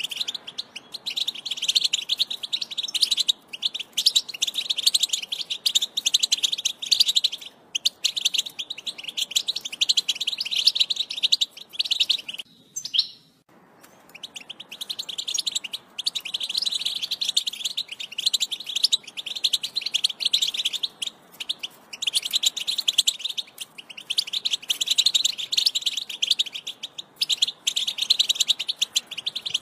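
European goldfinch singing a fast, continuous twittering song with short pauses, breaking off for about a second and a half halfway through.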